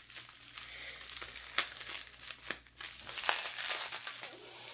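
Clear plastic bubble wrap crinkling as it is peeled off a hatching egg by hand, with a few sharp crackles among the rustling.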